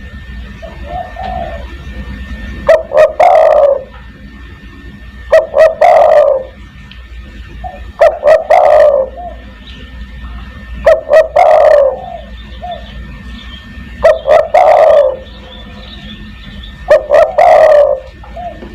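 Spotted dove (tekukur) cooing: six loud phrases repeated about every three seconds, each a couple of short notes running into a longer coo, over a low steady hum.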